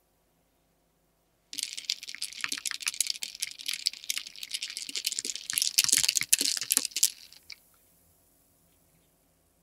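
Ice cubes clicking and clinking rapidly against a glass as a carbonated cherry cola is stirred with a wooden stick. The clinking starts about a second and a half in and stops about seven seconds in, leaving a faint fizz.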